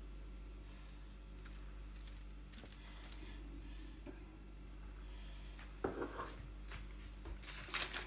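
Faint scattered clicks and taps of handling at a kitchen counter, a short louder knock about six seconds in, then near the end a burst of crinkling and rustling.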